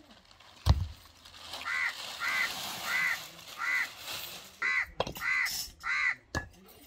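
A bird calling seven times in an even series, about one call every two-thirds of a second, with a sharp thump about a second in and softer knocks near the end.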